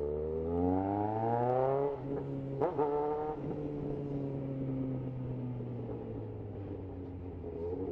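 Yamaha XJ6 motorcycle's inline-four engine accelerating, rising in pitch for about two seconds, then dropping with an upshift and pulling again briefly before settling into a steady, slowly falling cruise.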